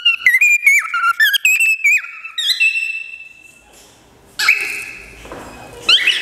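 Male cockatiel whistling its courtship song: a quick run of gliding whistled notes that ends in one long held note. After a short pause comes a louder, harsher call, then more quick chirped notes near the end.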